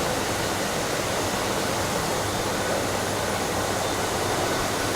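Steady machinery noise on a vinyl flooring factory floor: an even hiss with a constant low hum.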